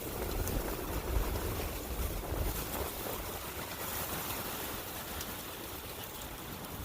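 Forest ambience of wind rushing through the trees beside a running brook. It is a steady noise that swells over the first couple of seconds and then slowly eases.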